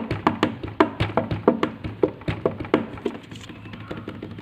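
Hands drumming and tapping on a wooden table, a quick uneven run of knocks several times a second that thins out after about three seconds.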